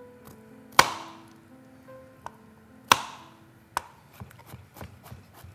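Kitchen knife chopping cauliflower on a cutting board. There are two loud chops about two seconds apart, then a run of quicker, lighter chops near the end, over soft background music.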